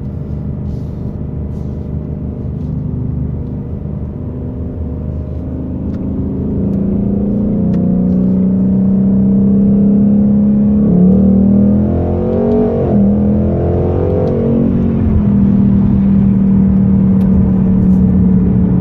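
2019 Mustang GT's 5.0-litre V8 heard from inside the cabin, building speed from about six seconds in. Its pitch dips a few times between about eleven and fourteen seconds as the 10-speed automatic changes gear, then it holds a steady drone.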